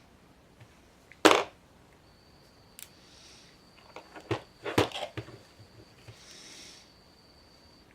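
Sharp clicks and knocks of a metal padlock and small lock parts being handled and set down: one loud knock about a second in, then a quick cluster of clicks about four to five seconds in.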